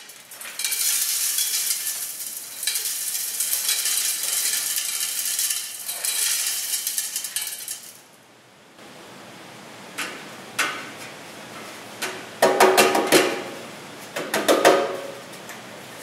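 Granular A crushed aggregate poured from a metal pan into the top of a stack of brass sieves: a steady gritty hiss of gravel and sand running out for about eight seconds. After a short pause come several metal clanks and knocks as the pan meets the sieve rim and the last material is shaken out.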